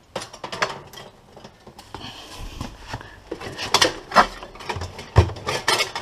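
Irregular clicks, clinks and light scraping of a screwdriver prising a fridge freezer's defrost heater element off its clips on the evaporator coils, with a sharper knock about five seconds in.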